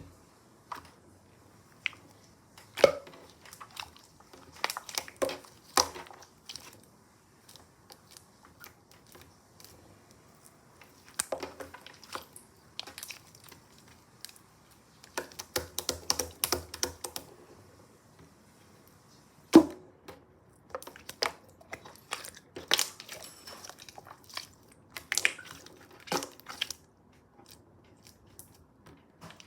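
Slime being pressed, stretched and poked by hand, giving irregular clusters of small clicks and crackles with short pauses between handlings.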